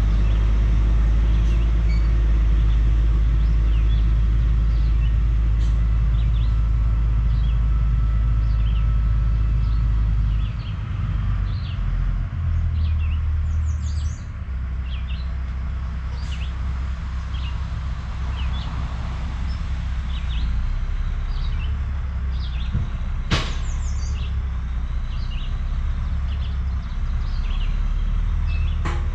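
Diesel engine of a dump truck and pup trailer rumbling as it pulls away, dropping off after about ten seconds and carrying on more faintly, with birds chirping throughout. A single sharp click sounds near the end.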